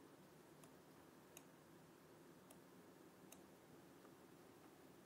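Faint computer mouse clicks, about four spread over the first few seconds, over near-silent room tone.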